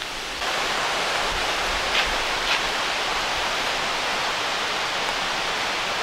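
Rushing water of a mountain river or creek: a steady, even hiss that grows louder about half a second in, with a couple of faint ticks.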